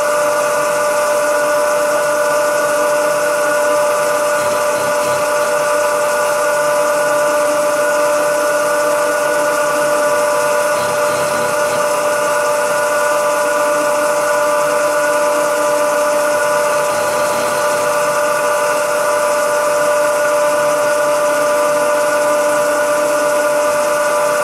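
Milling machine running steadily with a constant multi-tone whine as its end mill cuts away the lower part of a small metal scissor-jack arm held in the vise.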